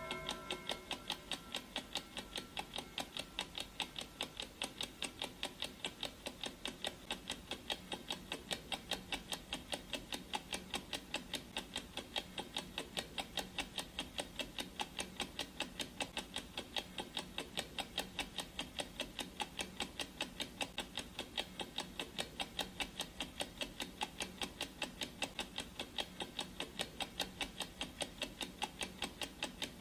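Clock ticking steadily and evenly, with the last of a gong's ring dying away in the first moment.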